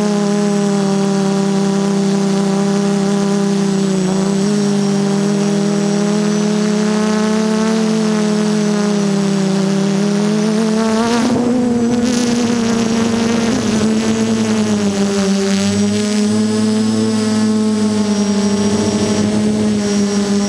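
DJI F330 quadcopter's brushless motors and propellers buzzing steadily, heard from the camera on board, the pitch wavering as the throttle changes. About eleven seconds in the pitch rises briefly with a rush of air noise.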